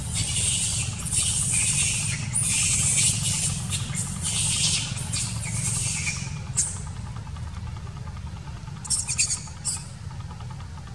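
Long-tailed macaques screaming in a string of harsh, high shrieks for the first six seconds or so, then a few short shrieks about nine seconds in, over a steady low rumble.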